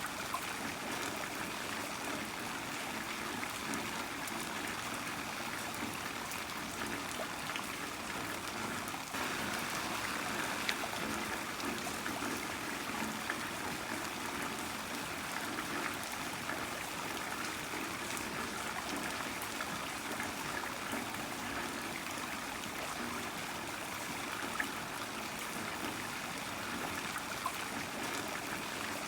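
Heavy rain falling steadily, an even wash of water noise with a few louder drops ticking here and there.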